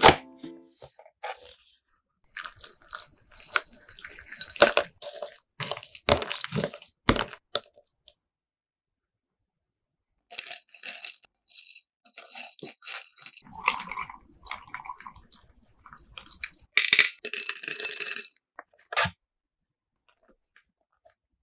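Close-miked ASMR handling of a Dano Protein Chocoball snack box and its chocolate-coated balls: crisp crackles, rustles and small hard clicks in two spells, with a sharp click near the end.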